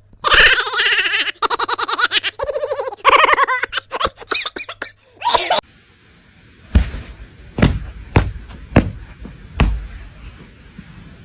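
A person laughing loudly for about five seconds. Then, after a pause, about six separate dull knocks at uneven spacing.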